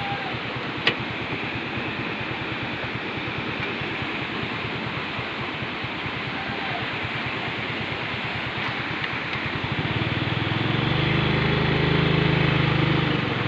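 Motorcycle engine running at low speed, with wind noise over the microphone and a sharp click about a second in. About ten seconds in, a deeper, louder engine hum swells up, then eases near the end.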